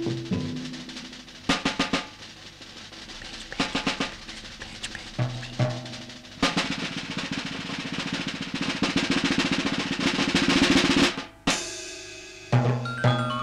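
Film-score percussion: scattered drum hits, then a rapid snare drum roll that grows louder for about four seconds and cuts off suddenly. A few pitched notes come in near the end.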